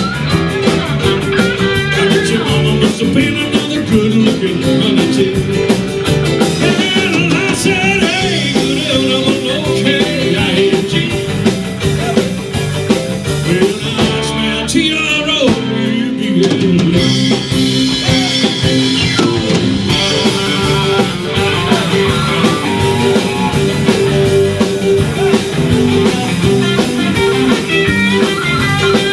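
Live blues-rock band playing: electric guitar, bass guitar and drum kit, with a male singer on a microphone.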